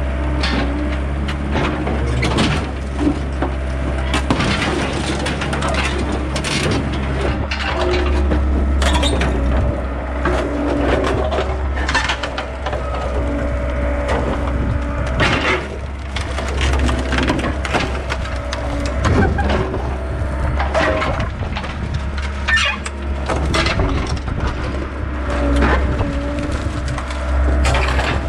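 Excavator's diesel engine running steadily under load while its bucket tears, crushes and bends the rusted sheet metal and body of a pickup truck. Repeated cracking, creaking and crunching of metal gives way at irregular moments all through.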